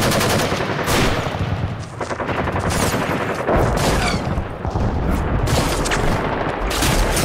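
Video game gunfire: rapid automatic fire and single shots, with deep booms about three and a half seconds in and again near the end.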